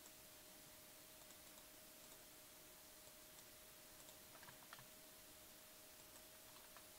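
Near silence with a faint steady hum and scattered faint clicks of a computer keyboard and mouse, a quick cluster of clicks about four and a half seconds in.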